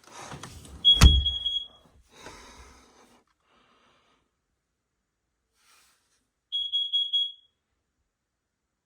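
Smoke alarm sounding two high, steady beeps, each about a second long and about five and a half seconds apart. A sharp knock comes just as the first beep starts.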